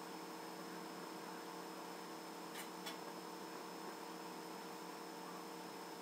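Steady electrical hum: several held tones over a constant hiss, with two faint clicks close together about halfway through.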